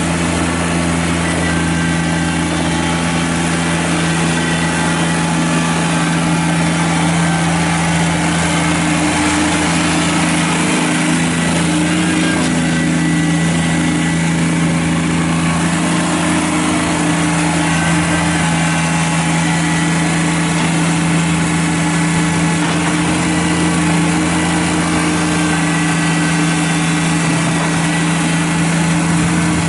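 Kubota BX23S sub-compact tractor's three-cylinder diesel engine running steadily at constant speed.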